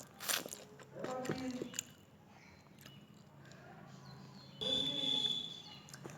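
Mouth sounds of a person eating: chewing and biting. There is a sharp noisy burst just after the start, short voice-like sounds about a second in, and a louder stretch near the end.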